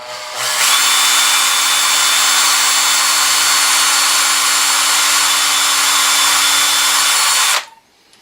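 Hand-held electric drill running a tap drill into a clamp part held in a vise. It spins up at the start, runs at a steady speed for about seven seconds, then stops abruptly near the end.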